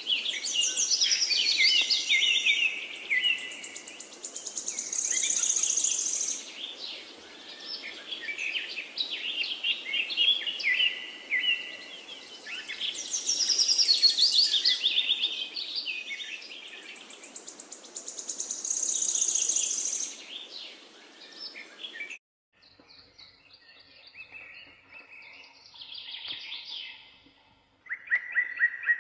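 Songbird singing: rapid chirps and trills in repeating phrases over a steady hiss. Both cut off abruptly about 22 seconds in, leaving fainter, scattered chirps.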